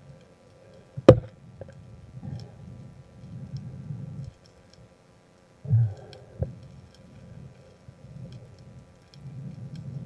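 Underwater handling of a speared catch on a spear shaft: a sharp click about a second in and a smaller one about six seconds in, over low muffled water rushing and faint scattered ticks.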